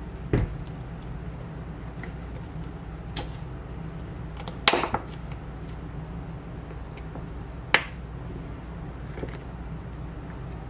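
Kitchen handling sounds over a steady low hum: a dull thump just after the start, then sharp plastic clicks of sauce-bottle caps as ketchup is squeezed into a small dish, the loudest a short cluster about halfway through and a single snap later on.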